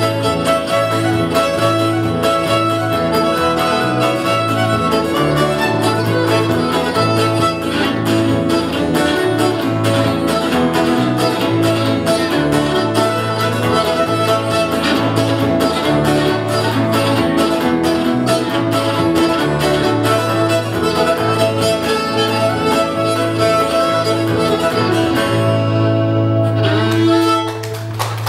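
Old-time fiddle tune played on fiddle, backed by acoustic guitar strumming and bass guitar, at a brisk steady beat. Near the end the trio closes on one long held final note, and the sound drops away.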